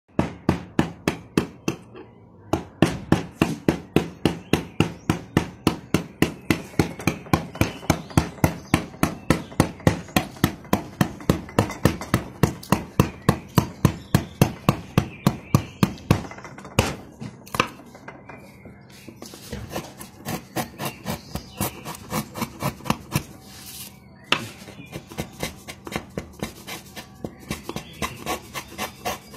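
Mallet striking a wood-carving chisel into wood in a steady, rapid rhythm of about three blows a second. After about nineteen seconds the blows become lighter and less regular.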